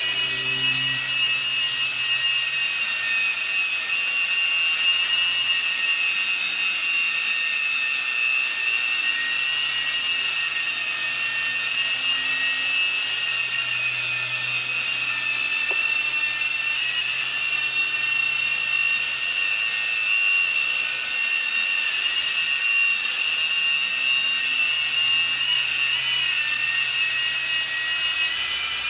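Small electric motors of a toy remote-control helicopter running at speed, a steady high-pitched whine that wavers slightly in pitch near the end.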